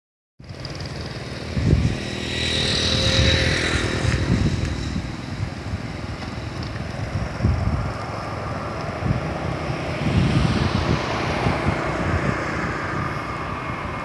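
Wind buffeting the microphone in gusts, with a motorbike engine passing on the road.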